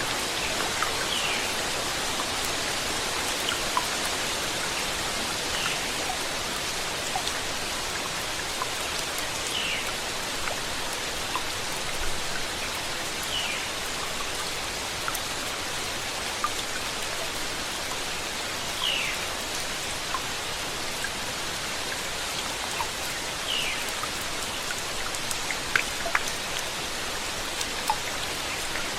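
Steady rainfall hissing, with individual drops ticking on a surface. A short, high, falling note recurs every few seconds.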